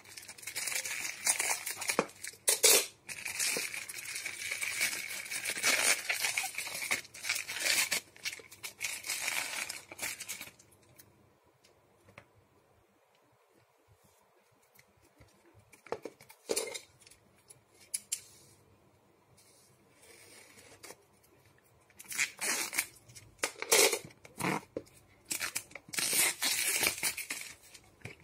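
Scissors cutting and tearing open a plastic mailer bag, with the plastic crackling and crinkling, for about the first ten seconds. Then a quiet stretch with a few light knocks as a cardboard box is handled, and near the end more crinkling of clear plastic wrap being pulled off the box.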